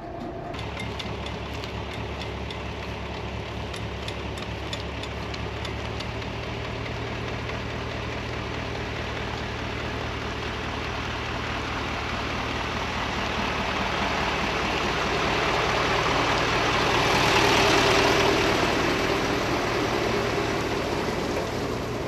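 Diesel engine of a MAN KAT military truck running steadily as it moves off at low speed, with scattered clicks over the first few seconds. A hissing noise builds and is loudest about 17 to 18 seconds in, then eases.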